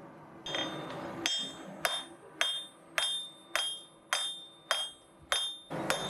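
Blacksmith's hammer striking hot steel on an anvil in a steady rhythm, a little under two blows a second, each with a bright ring: drawing the steel out to a tapered point.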